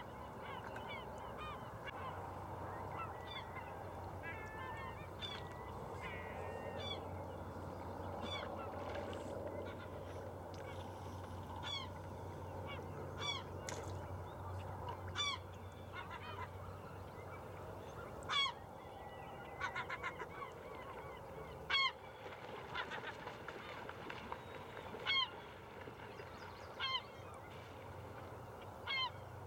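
Geese honking, with several birds calling over one another at first and then single louder honks every few seconds. A low steady hum lies underneath and fades about halfway through.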